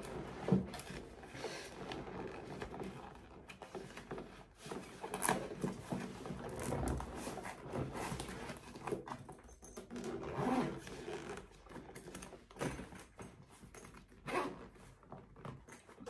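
Handling noises from packing a soft black bag: fabric rustling, irregular bumps and a zipper being worked.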